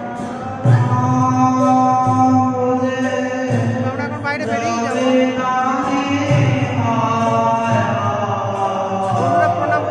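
Music with a voice singing long, held notes that waver and glide in pitch, growing louder about a second in.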